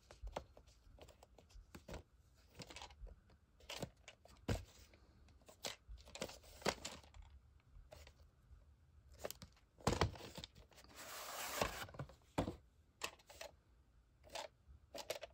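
A VHS cassette and its case being handled. Scattered plastic clicks, taps and rubbing run throughout, and a longer scraping rustle comes about eleven seconds in as the cassette is slid out of its case.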